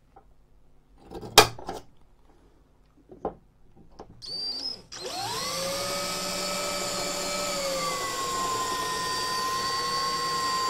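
Cordless drill with a twist bit drilling out a tamper-proof security screw in the casing of a post office scale. There is a sharp knock about a second in and a brief spin of the motor around four seconds. From about five seconds the drill runs steadily, its whine dropping slightly in pitch partway through.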